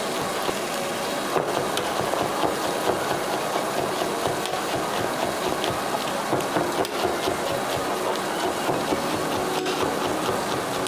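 Chef's knife finely shredding romaine lettuce on a plastic cutting board: a quick, steady run of blade taps on the board, with the leaves being sliced crisply between them.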